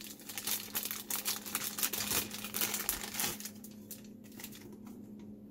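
Thin plastic packaging bag crinkling as it is opened and handled. The crinkling dies down after about three and a half seconds, leaving a few faint clicks.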